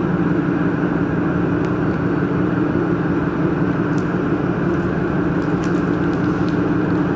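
Steady mechanical hum with a constant low drone, unchanging throughout, with a few faint light clicks.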